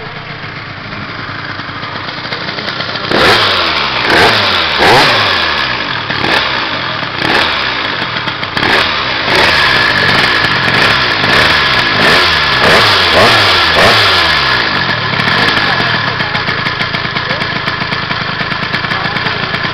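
Two-stroke Piaggio scooter engine with a 77cc big-bore kit and an expansion-chamber exhaust, running on its first start. It idles, then is revved up and down in a series of short blips from about three seconds in until about fourteen seconds, then runs steadily.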